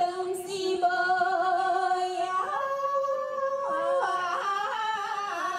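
Hengchun folk song sung in duet: a singer holding long drawn-out notes without breaks, each note gliding into the next pitch, with the line rising in the middle and falling back near the end.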